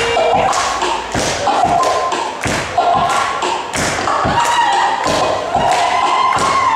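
Percussion-led belly-dance music played back over a PA: drum strokes on a steady beat about two a second with quicker strokes between, under a wavering melodic line.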